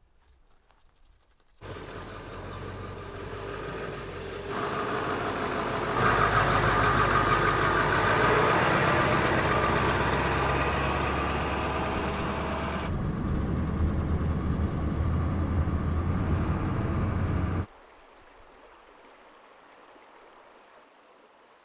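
Ford pickup's 7.3 Powerstroke V8 turbodiesel engine running as the truck with a slide-in camper drives by, starting abruptly, growing louder toward the middle and cutting off suddenly. Near the end, only a faint rush of river water.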